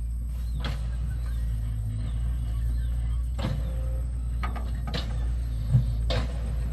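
A steady low mechanical hum with a few scattered sharp knocks, about four in all.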